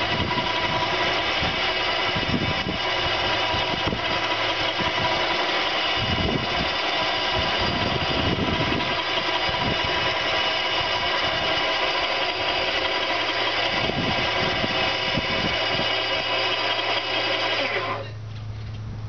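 Powered winch motor running steadily with a whine as it hauls on the winch cable to move the boat; it cuts off suddenly about a second before the end.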